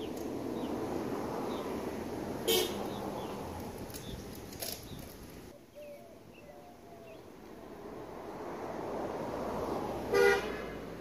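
Cars passing on the road, their tyre and engine noise swelling and fading twice. Short car-horn honks sound over them: one about two and a half seconds in, a briefer one a couple of seconds later, and the loudest near the end.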